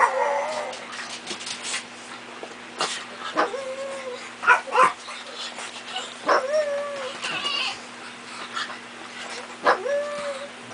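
Japanese Chin dogs yapping in turns, a few seconds apart. Most yaps slide into a short, held, howl-like note.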